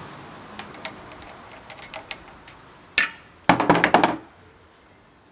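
Hand tools and metal mounting parts clinking in an engine bay while the last bolt holding a radiator part is worked loose. Light scattered ticks lead to a sharp knock about three seconds in, then a short rattling clatter.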